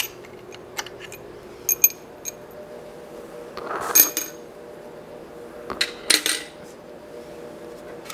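Hand tools and small metal parts clinking and tapping against the DoAll drill press head as it is taken apart. The sharp clinks come every second or so and some ring briefly. The loudest, ringing clink comes about four seconds in, and a short clatter follows around six seconds. A faint steady hum runs underneath.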